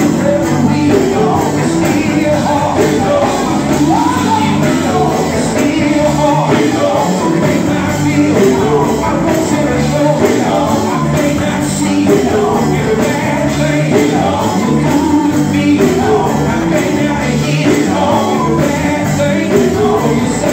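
Live amplified gospel music: male voices singing into microphones over an electric guitar, with a steady beat.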